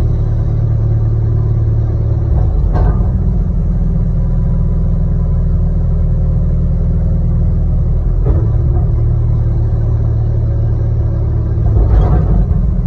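Diesel excavator engine running with a steady low rumble, its note shifting slightly a few times. Short sharp knocks come about three seconds in, about eight seconds in, and near the end.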